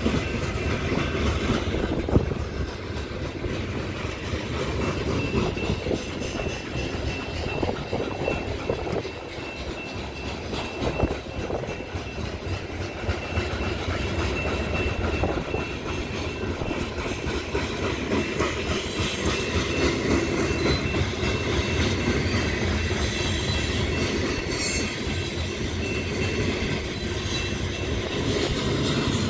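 Freight train of covered hopper cars rolling steadily past, a continuous rumble of steel wheels on rail with a sharp knock about two seconds in. A thin high squeal from the wheels grows stronger in the second half.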